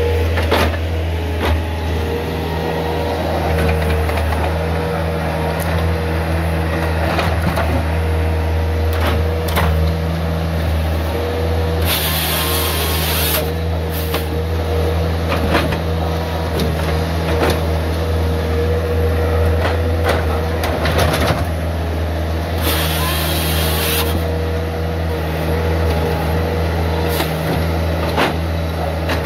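Bobcat S300 skid steer's diesel engine running steadily at working speed, with a steady whine over the hum, while it powers a hydraulic grapple saw. Two brief high hissing rasps come about 12 and 23 seconds in.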